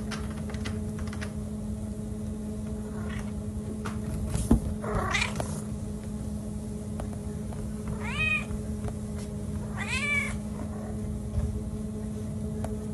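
A running treadmill hums steadily while a cat meows three times, about five, eight and ten seconds in. A sharp knock comes just before the first meow.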